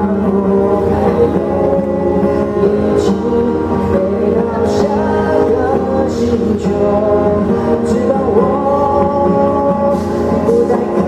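Band music from a Mandarin pop song: sustained chords under a moving melody line, with a few short high-pitched hits, in a passage with no recognisable lyrics.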